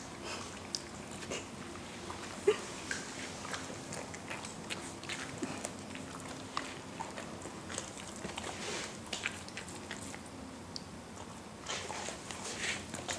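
Dogs licking and crunching a frozen sherbet treat, a string of irregular wet clicks and crunches, with one sharper knock about two and a half seconds in.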